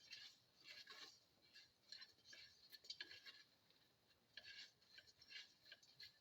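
Faint scraping of a utensil stirring ingredients in a pan, in short uneven strokes about three a second, with a brief pause a little over halfway through.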